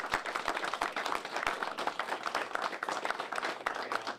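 Audience applause: many people clapping in a dense, steady patter that welcomes a speaker.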